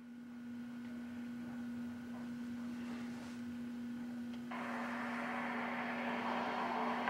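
A steady low electrical hum tone, with faint hiss, from a VHS tape playing through a TV. About four and a half seconds in, a louder, steady rushing noise cuts in suddenly and continues under the hum.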